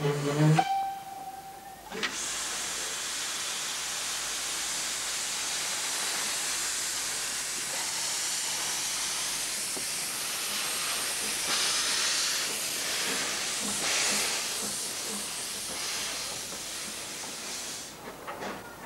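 Narrow-gauge steam locomotive letting off steam: a long, loud, steady hiss that starts about two seconds in and dies away near the end, after a brief high tone at the start.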